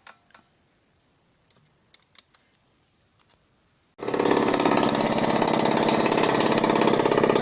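A few faint clicks of cylinder-head nuts being tightened, then, about four seconds in, the Honda Dio AF27's freshly re-ringed 50 cc two-stroke engine cuts in running loud and fast, without its silencer fitted yet.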